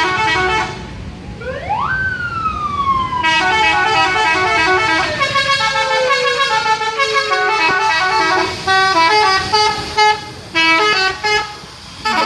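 Bus "telolet" multi-tone musical horn playing a fast melody of stepped notes. A siren-like tone rises sharply about two seconds in and then slowly falls over several seconds. The melody breaks off briefly a couple of times near the end.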